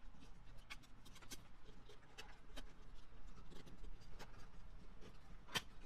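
Small clicks and scrapes of a screwdriver working the terminal screws of a plastic twist-lock connector as wires are fastened in, with one sharper click near the end.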